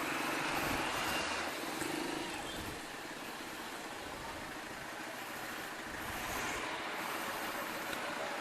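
Steady road traffic noise with a motor vehicle engine running, heard as an even hiss with a faint hum in the first couple of seconds.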